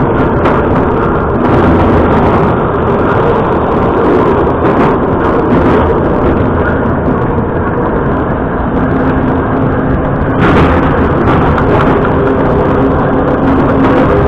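Moscow Metro 81-717.5A train running at speed through a tunnel: a loud, steady rumble of wheels on rail and traction motors, with a brief burst of hiss about ten seconds in.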